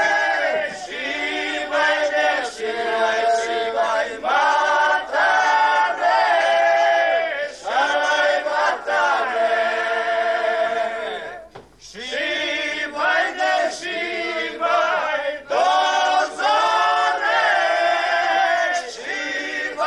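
A group of people singing together in chorus, in sung phrases with short breaks and a brief pause about eleven and a half seconds in.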